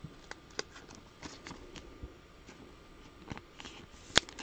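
Scattered light clicks and taps of trading cards and packaging being handled on a table, with one sharp, louder click about four seconds in.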